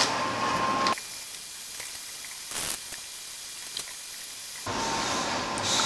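Steady background hiss, with one brief soft rustle about two and a half seconds in.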